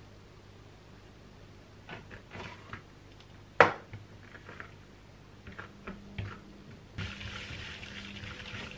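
Hands dividing bread dough with a knife on a silicone baking mat: a few soft knocks, then one sharp knock about three and a half seconds in, and a few light taps. Near the end a steady rubbing hiss as a dough piece is rolled into a ball under the palm against the mat.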